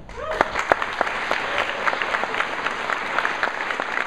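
Audience applauding, a dense patter of many hands clapping that starts abruptly, with a brief rising shout near the start.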